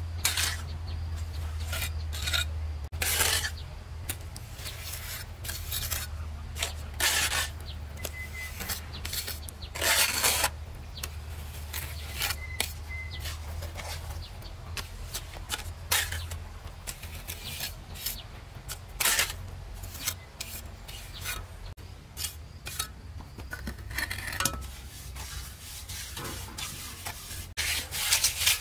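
Irregular rasping strokes of a hand tool on wood, roughly one a second, some drawn out for about half a second, over a low steady hum that fades about halfway through.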